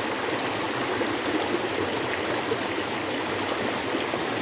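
Steady rush of a river and a small spring-fed waterfall, water running evenly with no break.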